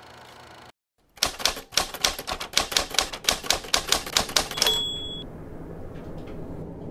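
Typewriter keys clacking in a quick, even run of about fourteen strikes, roughly four a second, then a single ding of the typewriter's bell. This is a sound effect for the film's title being typed out letter by letter.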